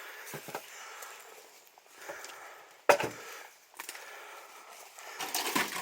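Scattered cracks and knocks of wood, like dry sticks or old timber snapping and shifting underfoot, with one sharp, loud crack about three seconds in and a cluster of smaller ones near the end.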